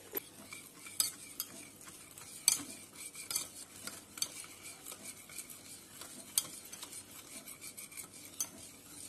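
A wire whisk beating a thin flour-and-cornflour batter in a metal bowl: a wet swishing with irregular sharp clinks of the wires against the bowl.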